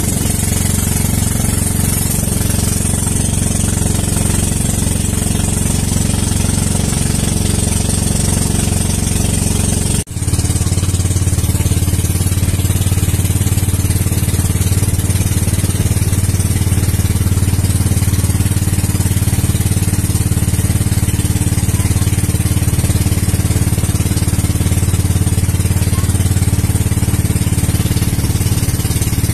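Motorized outrigger boat's engine running steadily at cruising speed, a loud, even drone, with a momentary break about a third of the way in.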